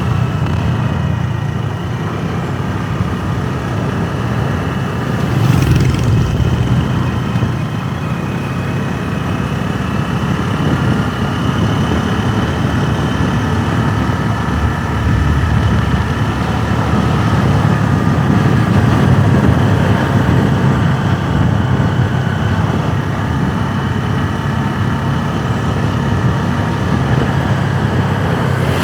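Motorbike running under way with steady low road and wind rumble. The engine note drifts slightly up and down, with a brief louder swell about six seconds in.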